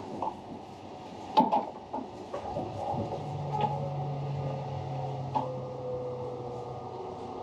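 A compartment door's lever handle and latch click open with a sharp knock about a second and a half in. From about three seconds in, a steady low hum of the Saphir Odoriko (E261 series) train rolls slowly along the platform, with a faint tone drifting slightly downward.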